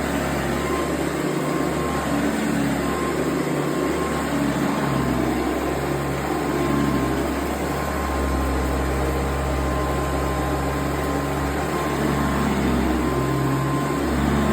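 Hoover Convertible upright vacuum cleaner running on carpet, its motor going steadily with a thin steady whine over a low hum that swells and eases.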